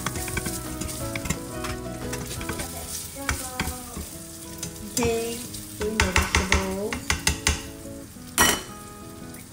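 Diced Spam sizzling in a hot stainless steel pan while a metal slotted turner scrapes and clinks against it, the pan ringing. A quick run of loud knocks comes about six seconds in, and one sharp clack near the end.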